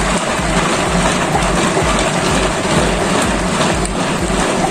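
Food chopper running on garlic and ginger, the pieces rattling and churning inside the bowl, with a steady hum and a regular low pulsing.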